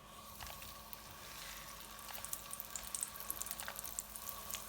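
Ghee sizzling and crackling in a hot pan, a soft hiss with small pops that grows louder over the last couple of seconds.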